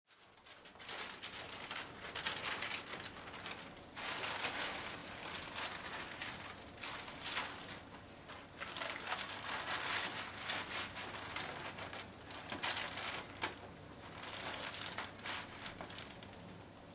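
Clear plastic rain bonnet crinkling and rustling in irregular bursts as it is handled and its ties fastened under the chin.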